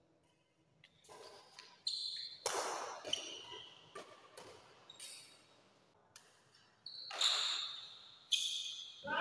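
Badminton rackets striking a shuttlecock back and forth in a doubles rally, a string of sharp hits spaced roughly a second apart, each echoing briefly in a large hall.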